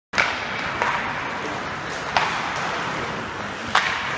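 Indoor ice hockey rink sound: a steady hiss of skates and arena noise, with sharp clacks of sticks and puck, four of them, the loudest right at the start and near the end. The sound cuts in suddenly at the start.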